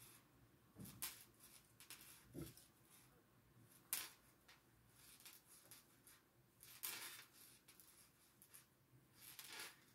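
Near silence with faint rustling and light clicks of yarn being worked with a crochet hook by hand, the sharpest tick about four seconds in.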